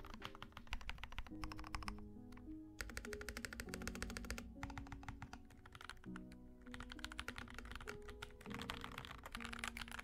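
Typing on a mechanical keyboard with stock, unlubricated Akko V3 Cream Yellow light linear switches: rapid keystroke clacks in bursts with brief pauses. Quiet background music plays underneath.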